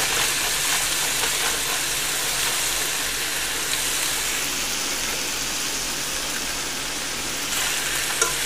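Strips of pork loin and onions sizzling in a stainless steel frying pan, a steady hiss of frying as the meat and onions brown and caramelize.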